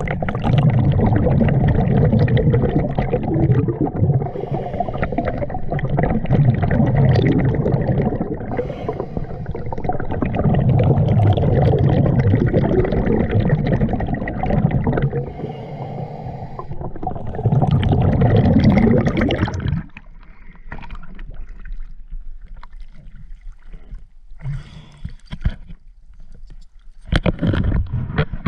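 Diver's exhaled bubbles rumbling past an underwater camera in bursts every few seconds. About twenty seconds in, the camera comes out of the water and the sound drops to light splashes and knocks.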